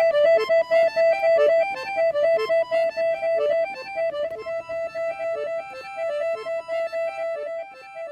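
Piano accordion playing a quick tune of short repeated notes, growing quieter near the end.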